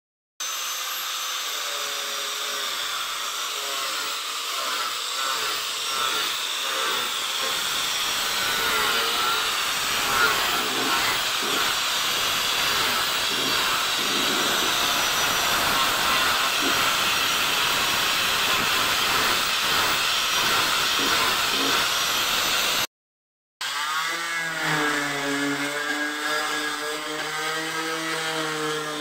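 Power sanding of pine planks: an angle grinder fitted with a sanding disc runs steadily with a high whine. After a break near the end, a palm sander takes over with a steady whir whose pitch wavers slightly.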